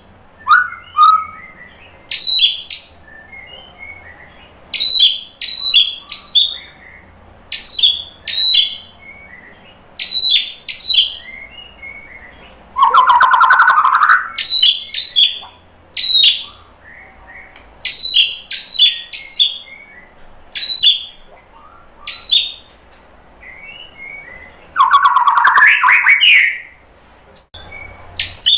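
White-rumped shama singing: a run of loud, sharp, downward-sweeping whistled notes, one or two a second. They are broken about halfway through, and again a few seconds before the end, by a harsh buzzy rattle lasting over a second.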